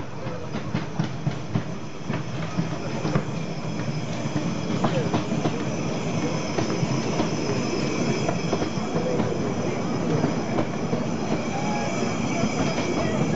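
Narrow-gauge steam train passing close by on a curve: wheels clicking over the rail joints and squealing against the curved rails, growing louder over the first few seconds as it comes near.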